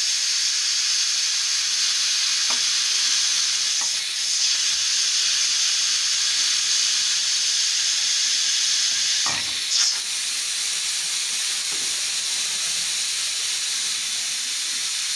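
Pressure cooker venting steam through its valve as the pressure weight is held up by hand: a loud, steady hiss. It breaks off briefly about four seconds in, there is a short knock near ten seconds, and then the hiss goes on a little quieter.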